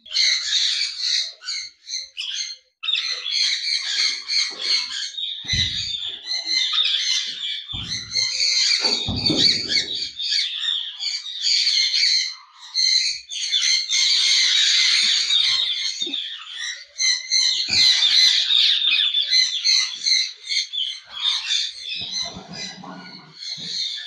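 Many caged birds in a breeding aviary chattering, chirping and squawking without a break, with a few dull low thumps in the first half.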